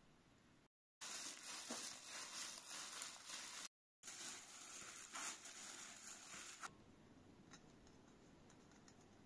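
Rustling, crinkling noise in two stretches of a few seconds each, broken by a brief dropout, then much quieter with a few faint light ticks.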